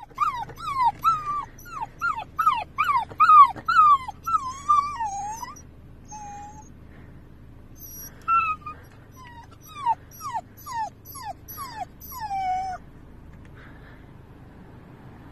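Golden retriever puppy whining and yelping in a rapid run of short, high, falling cries, about two a second, pausing briefly midway and ending in a longer drawn-out whine. A low steady hum of the car interior runs underneath.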